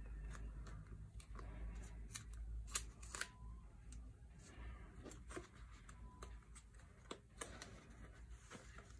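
Plastic binder pocket sleeves rustling and clicking as sleeved photocards are slid into the pockets, with a couple of sharper clicks about three seconds in.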